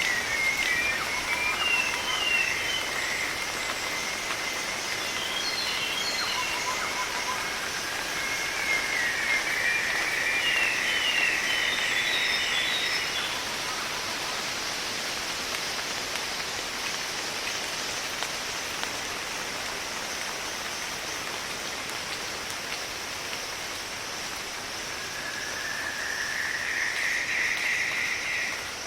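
Sri Lankan rainforest ambience: a steady rushing hiss with a constant high insect drone, birds chirping in the first half, and a buzzing call that rises and swells twice, the second time cutting off sharply near the end.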